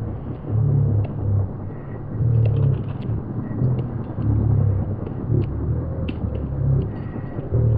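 Army Air Corps WAH-64D Apache attack helicopter's twin turboshaft engines and rotors, a low rumble that swells and fades irregularly.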